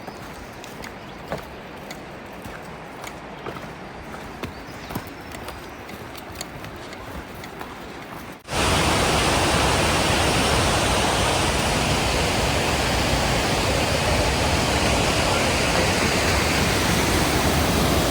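Rushing of Whitewater Falls: a fainter, distant hiss with scattered small ticks and taps for the first eight seconds or so, then after a sudden cut a loud, steady roar of falling water heard close up.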